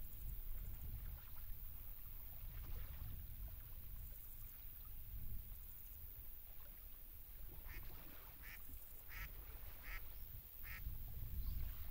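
A duck quacking in a series of about six short quacks, evenly spaced a little under a second apart, starting about two-thirds of the way in. A steady low rumble runs underneath.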